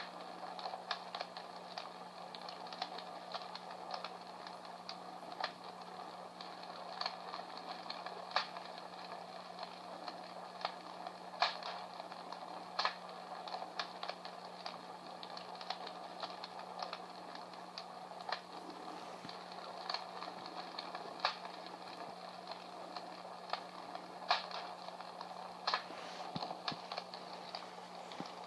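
Comfort Smart Fire Crackler, a small battery-operated sound-effect box, playing a recorded crackling fire through its little speaker. Irregular sharp pops and snaps come over a steady hiss, with a low steady hum underneath.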